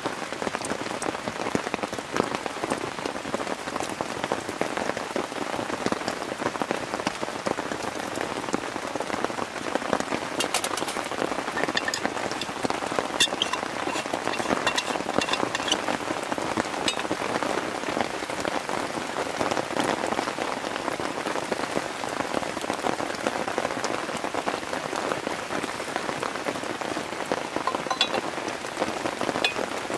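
Steady rain falling, an even hiss of drops. A few light clicks and taps sound through it around the middle.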